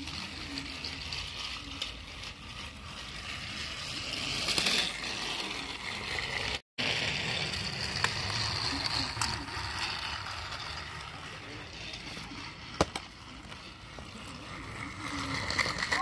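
Battery-powered toy train engine running along plastic track, its small motor whirring and its wheels rattling over the rail joints. The sound drops out for a moment about two thirds of the way through, and a sharp click stands out near the end.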